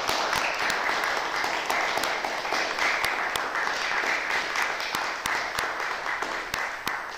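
A small audience applauding in a concert hall, the clapping thinning out and dying away near the end.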